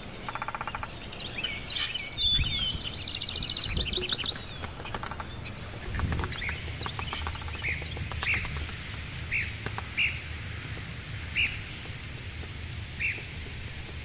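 Woodpecker sounds: a jumble of bird chirps and a few light taps over the first few seconds. From about six seconds in, a red-cockaded woodpecker calls with short, high, single notes repeated about once a second.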